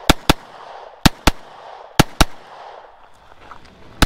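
Handgun shots fired in quick pairs: three double shots about a second apart, then a single shot right at the end, each with a short ringing tail.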